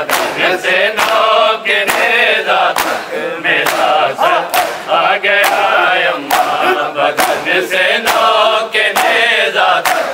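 Men's voices chanting a noha (Shia lament), with a crowd of mourners beating their chests in unison (matam). The chest slaps land as sharp, hand-on-chest claps about every 0.8 seconds, keeping time with the chant.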